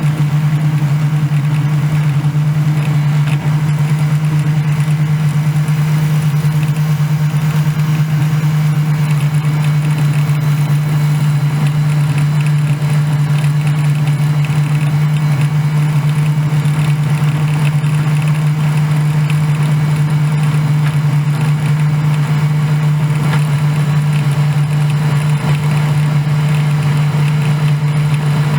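Combine harvester running steadily in the corn, a loud, constant low engine hum that does not change.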